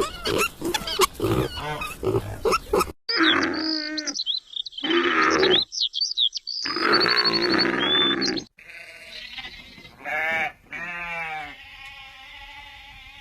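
A run of separate animal calls. It opens with about three seconds of rapid grunting. After an abrupt cut come high chirping calls over louder, rougher calls. The last few seconds hold several quieter drawn-out calls and a steady held tone.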